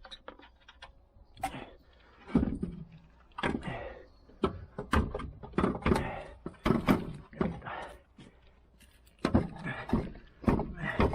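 A string of irregular knocks and clunks of tools against metal suspension parts as a part is worked loose during a strut replacement on a car.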